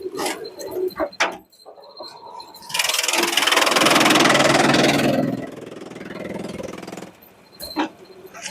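Heavy machinery running loudly for about two and a half seconds, then dropping to a lower steady running sound, with scattered clicks and knocks around it.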